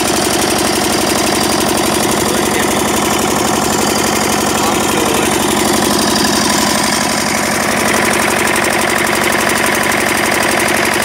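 Diesel generator set with a Prakash 12.5 kVA, 1500 rpm alternator, running steadily with a fast, even beat.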